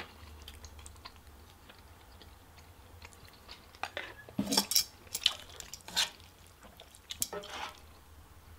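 Eating utensils clinking: chopsticks tapping a plate and metal tongs knocking against a skillet while food is served. There are a handful of sharp clacks, most of them between about four and six seconds in and a couple more near seven seconds.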